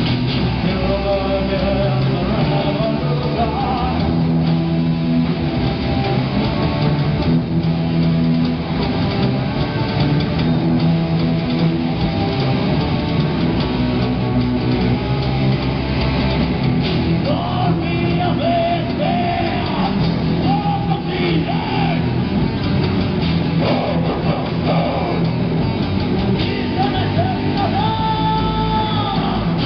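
Live rock band playing: electric guitars, bass and drum kit, with a singer's vocals.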